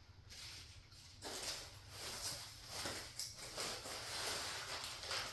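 Packing material and cardboard being handled and rustled in irregular swishes while a flat-pack cabinet's box is searched through, starting about a second in.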